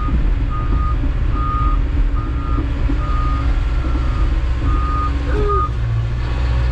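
Hyundai excavator's travel alarm beeping while the machine reverses, about one beep every three-quarters of a second, with its Perkins diesel engine running underneath. The beeps stop about five and a half seconds in as travel stops.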